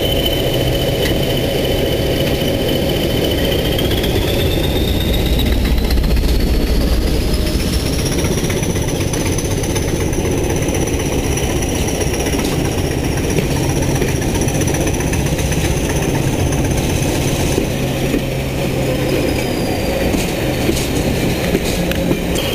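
Diesel locomotives, Class 31 no. 31438 with an English Electric 12SVT and Class 20 no. D8069 with an English Electric 8SVT, working hard ahead of the train, heard from a coach window. The engines make a steady low sound, and a high whine rises in pitch from about four seconds in and falls back near the end. A few sharp clicks from the running gear come in the second half.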